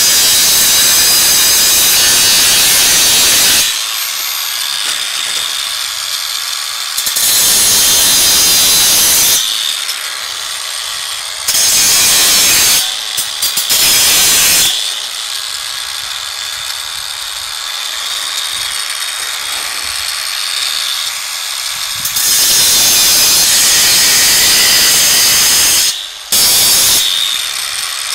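Cordless angle grinder cutting through the steel wires of a shopping-cart basket. It gives repeated loud stretches of harsh grinding, each a few seconds long, as the disc bites into the wire. Between cuts the motor spins freely with a quieter steady whine.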